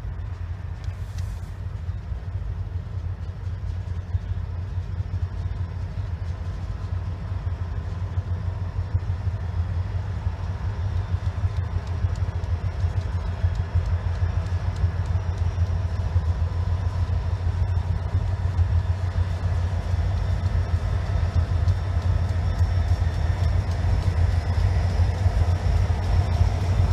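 Diesel locomotives of a Pan Am Railways freight train approaching: a deep, steady engine rumble that grows louder as the train comes closer.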